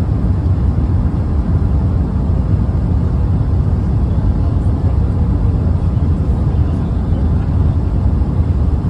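Steady low rumble of airflow and engines inside the cabin of an Airbus A380 on approach to landing with its flaps extended.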